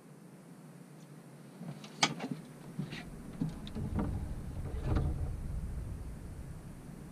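Clicks, knocks and low thumps of a person getting up from a boat seat and stepping forward across the boat's deck. A sharp click about two seconds in is the loudest, and the low thumping is heaviest around the fourth and fifth seconds.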